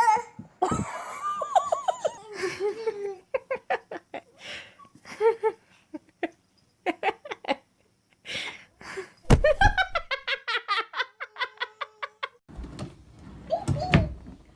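Laughter in quick runs of short, pitched bursts, stopping and starting several times.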